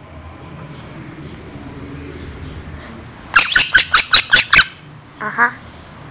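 Monk parakeet squawking: a rapid run of about seven sharp, loud screeches about three seconds in, lasting about a second and a half.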